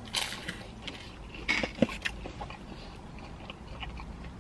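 Someone eating pizza: two crunchy bites into a cracker-like crust, then quieter chewing.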